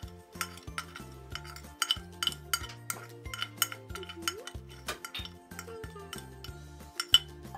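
Metal spoon scraping and tapping against a ceramic dish as sugar, salt and baking powder are pushed into a glass bowl: a run of sharp clinks, the loudest near the end. Background music plays underneath.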